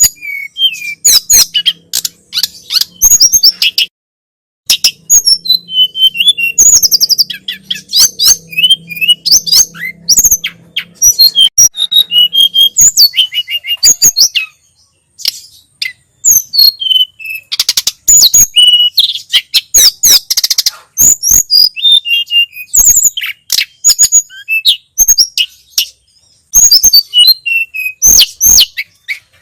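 A tledekan gunung (sulingan gunung) sings continuously in fast runs of sharp, high chirps and trills, broken by brief pauses three times. A faint low hum lies under the first half.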